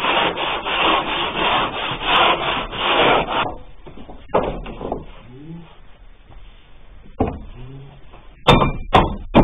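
A sliding-door profile being worked back and forth along the edge of a board panel to pull it off, making a rhythmic scraping rub of about three strokes a second that stops after three and a half seconds. Two sharp knocks come near the end.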